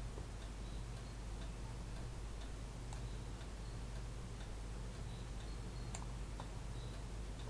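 A steady low hum and hiss, with faint, irregular high-pitched ticks scattered through it and a slightly sharper click about three and six seconds in.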